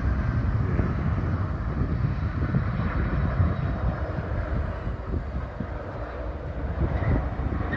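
Steady low rumble of a twin-engine widebody cargo jet's turbofan engines as it flares over the runway and touches down about six seconds in.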